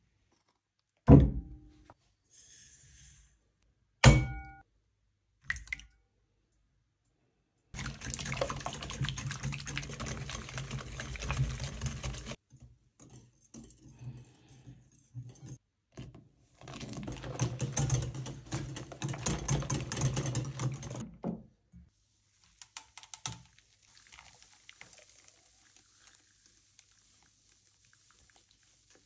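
Kitchen preparation sounds: two sharp knocks about one and four seconds in, then two long stretches of busy rattling and scraping as the cream-cheese flan batter is mixed in a glass bowl. Near the end comes a faint, steady hiss of the batter pouring through a mesh strainer into a metal loaf tin.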